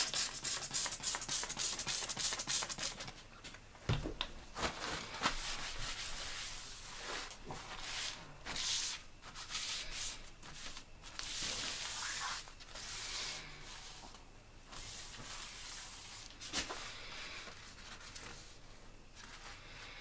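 Handling noises from moving the mini lathe and pulling its power cord free: rubbing and scraping, with a quick run of rapid ticks at the start and a knock about four seconds in.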